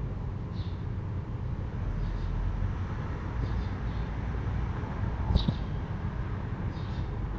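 Steady low rumble of background noise with faint short high chirps every second or two, and a single sharp knock about five seconds in.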